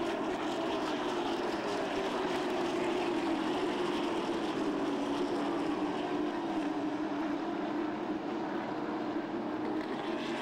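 A field of stock car engines running hard together at speed, a steady massed drone whose pitch sags slowly over the first half.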